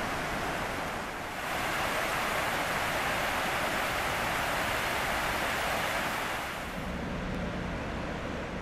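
Water pouring over a long, low lake weir in a steady rush. It grows louder about a second in and softens again near the end.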